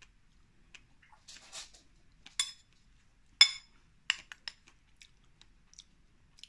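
Metal spoon against a ceramic bowl while scooping ice cream and strawberries: a short scrape, then two sharp ringing clinks about a second apart, the second the loudest, followed by several lighter taps.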